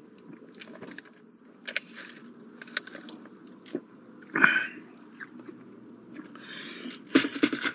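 Close-miked mouth sounds of sipping a fountain drink through a straw, swallowing and chewing: scattered short wet clicks, the loudest about four and a half seconds in, with a denser cluster near the end.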